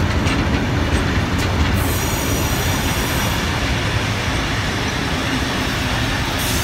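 Vintage passenger carriages rolling past on the rails with a steady low rumble and a few wheel clicks over rail joints in the first two seconds. A high wheel squeal sets in about two seconds in, fades about a second and a half later and returns near the end, as the wheels grind through the curve.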